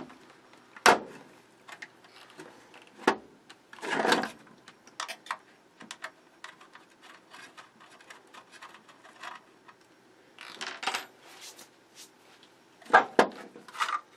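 Hex key working the screws of a 3D printer power supply's plastic mains cover loose, then the cover being lifted off: scattered sharp metallic clicks and taps, with a longer scraping rustle about four seconds in and another cluster of handling noise near the end.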